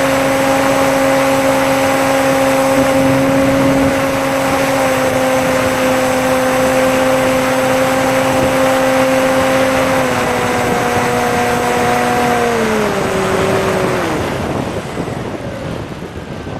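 Bixler RC plane's electric pusher motor and propeller running at steady throttle, a steady whine over rushing air. It is throttled back about ten seconds in, and its pitch falls away around thirteen seconds as the power is cut, leaving wind noise as the plane glides.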